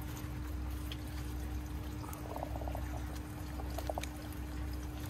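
Water trickling and splashing steadily down inside a Tower Garden's vertical grow column, over a steady faint hum, with a few light clicks from kale leaves being cut and handled.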